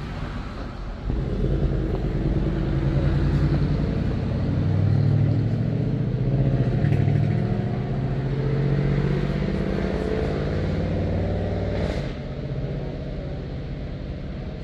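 A motor vehicle's engine running close by, with a low, shifting engine note. It grows louder about a second in and falls off sharply about twelve seconds in.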